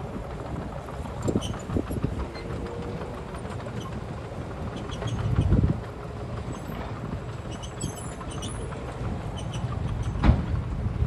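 Heavy earthmoving machinery running with a steady low rumble and scattered clanks and knocks. The engine swells briefly about halfway through, and a sharp, loud knock comes near the end.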